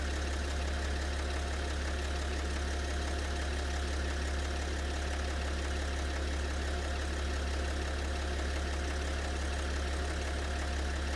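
BMW 730d's M57 three-litre straight-six diesel idling steadily. The owner is trying to trace a mysterious knock from this engine that comes and goes.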